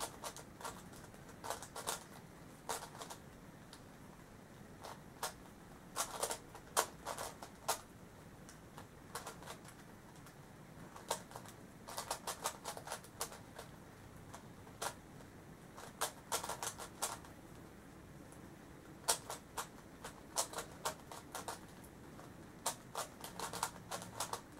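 Plastic layers of a stickerless megaminx puzzle clicking as it is turned by hand, in bursts of rapid clicks separated by short pauses.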